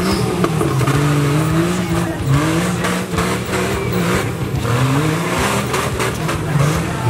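Off-road buggy engine revving hard in repeated rising surges, falling back between them, as the buggy labours up a steep muddy slope under heavy load.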